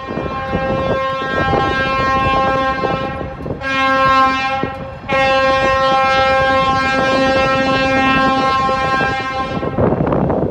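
EMD GP switch locomotive's air horn sounding for a grade crossing: a long blast, a short one, then another long blast of about four and a half seconds, the close of the long-long-short-long crossing signal. Wind gusts on the microphone underneath.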